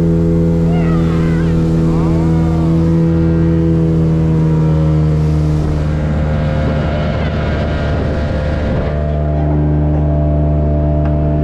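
A mini speedboat's engine running at a steady, unchanging speed. From about five seconds in, for roughly four seconds, the hiss of water spray rises over it as the boat turns hard.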